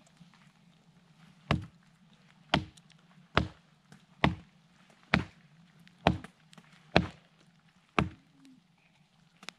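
Wood being chopped with an axe or hatchet: eight heavy blows, about one a second.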